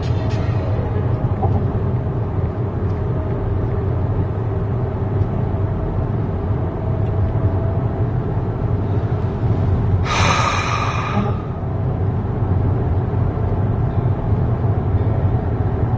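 Steady low rumble of a vehicle heard from inside. About ten seconds in, a short hiss lasts just over a second.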